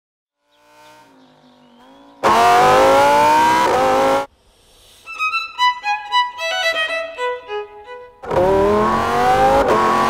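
Lamborghini Huracán EVO Spyder V10 accelerating hard twice, its pitch climbing steadily; the first run cuts off suddenly, and the second dips briefly near the end as it shifts up, then climbs again. Between the two runs, and faintly at the start, a violin plays short, separate notes.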